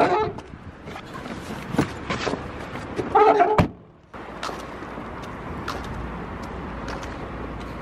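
A car's rear passenger door pushed shut with a solid slam about three and a half seconds in, after a lighter thump about two seconds in. Then a steady background hiss with a few faint ticks.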